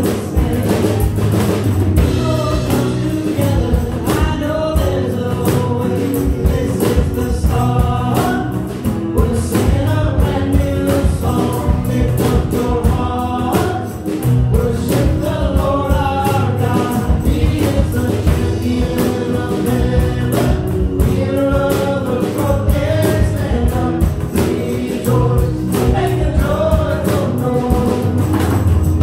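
Live worship band performing a contemporary Christian song: several voices singing together over a steady drum beat and acoustic guitar.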